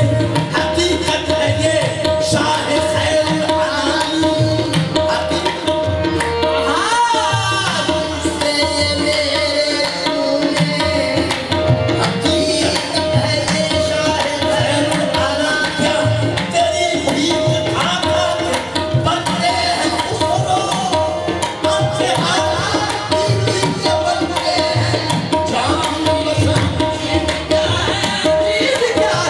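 Live qawwali: male voices singing in gliding, ornamented lines over a harmonium and a steady hand-drum rhythm.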